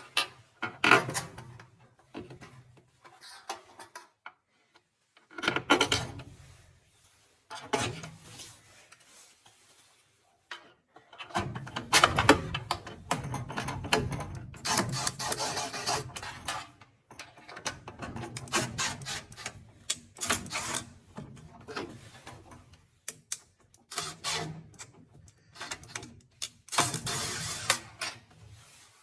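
Irregular handling noises of repair work: bouts of rubbing and scraping with clicks and knocks, coming and going over the stretch, the longest bout about eleven seconds in.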